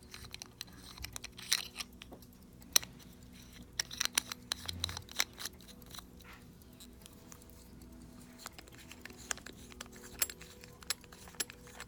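Small irregular metallic clicks and scrapes from a Hampden pocket watch's Silverode case being handled, as the screw-on bezel and crystal are worked back onto it. The clicks are most frequent in the first five seconds and thin out after that.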